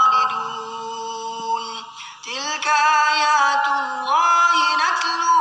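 A man's voice chanting Quran recitation in the melodic tajweed style, amplified through a headset microphone: one long held phrase, a short breath about two seconds in, then a new phrase that climbs in pitch.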